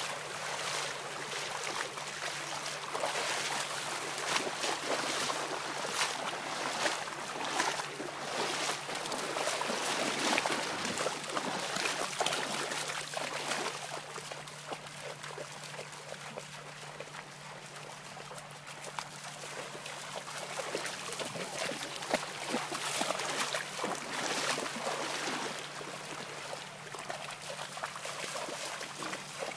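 Shallow seawater splashing under a dog's legs as it runs and paddles through the wash at the water's edge, in uneven bursts that ease off for a while around the middle before picking up again.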